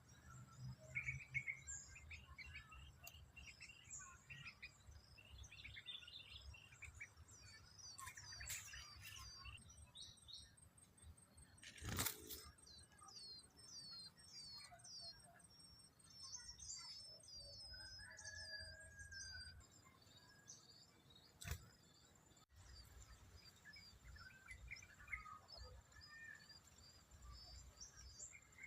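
Small birds chirping and twittering faintly in short, quick calls, busiest in a rapid run of down-slurred notes in the middle. A single sharp knock about twelve seconds in is the loudest sound, with a lighter click later and a low rumble underneath.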